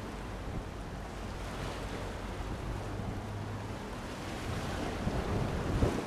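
Wind on the microphone over a steady wash of sea, with gusts buffeting the mic near the end. A faint low steady hum runs under it for the first few seconds.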